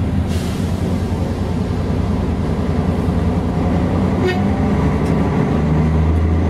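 Mercedes-Benz O407 bus's rear-mounted diesel engine running as the bus drives, heard from inside the passenger cabin as a steady low drone. A little after five seconds in, the low engine note steps up and grows louder.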